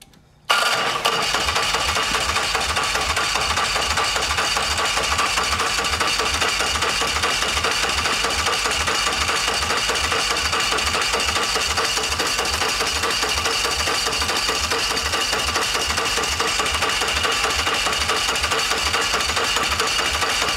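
Electric starter motor cranking a 113 cubic inch motorcycle V-twin with its spark plug wires off, so the engine turns over without firing. It kicks in about half a second in and runs without a break: a steady whine over a chugging of about four compression strokes a second, held on continuously to run the battery down.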